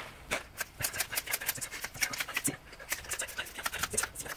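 Lezyne Micro Floor Drive HVG mini floor pump being worked fast by hand: a quick, even run of pump strokes, about ten in four seconds. It is inflating a very wide mountain-bike tyre that is at about 2.3 to 2.7 bar.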